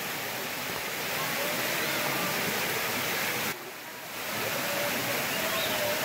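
Water rushing steadily over the limestone cascades of a waterfall, an even hiss that dips briefly a little past halfway.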